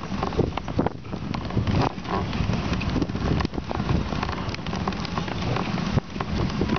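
Dog sled runners sliding over a packed snow trail, a continuous hiss with irregular crackling and clicking from the snow and sled, and wind buffeting the microphone as a low rumble.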